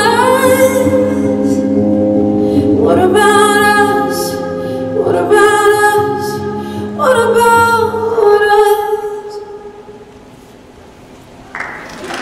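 A song with a female vocalist holding long notes over a low sustained chord, played loud; the music fades out about two-thirds of the way through. Audience applause breaks out just before the end.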